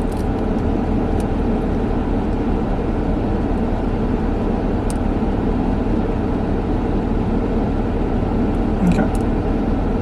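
Steady running noise inside a car's cabin, with a few faint clicks.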